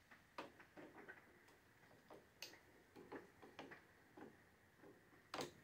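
Faint, irregular light clicks and taps of the clutch master cylinder, mirror and clamp parts being handled and fitted back onto a motorcycle handlebar, with a sharper click near the end.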